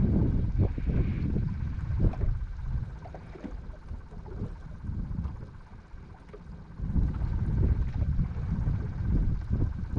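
Wind buffeting the microphone on an open boat: an uneven low rumble that eases off in the middle and picks up again about seven seconds in, with a few faint knocks.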